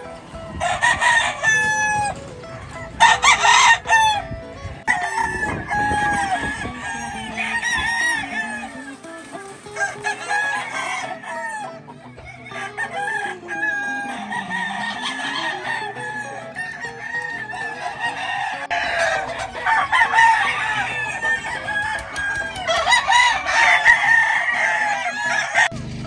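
Many gamefowl roosters crowing over and over, the calls overlapping one another, some loud and close, others farther off.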